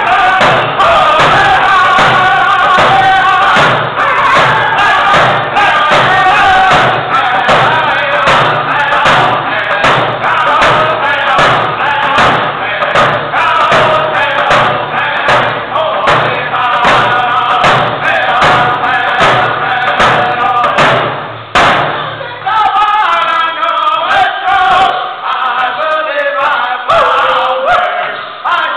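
Men's group singing a Native American hand drum song, beating stick-struck hand drums in a steady even beat under the voices. A little past three-quarters through, the low voices and heavy beats drop away, leaving higher singing over lighter drumming.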